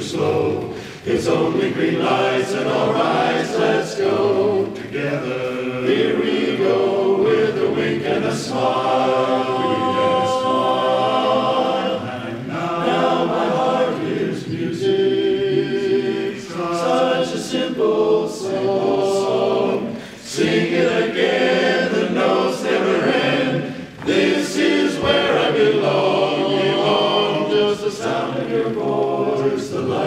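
Men's barbershop chorus singing a cappella in close harmony, in sung phrases with brief breaks between them.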